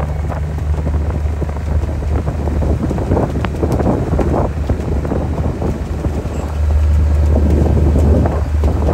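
Wind buffeting the microphone in irregular gusts over a steady low rumble, which gets louder about two-thirds of the way in.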